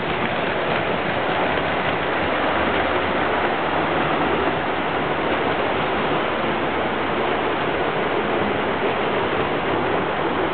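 Muzeo Express model train running around its track loop: a steady, even noise that does not change.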